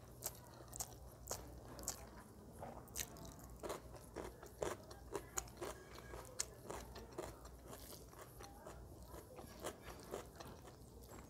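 Close-miked eating sounds: chewing with irregular wet clicks and smacks, and fingers mixing rice and chicken curry on a metal plate.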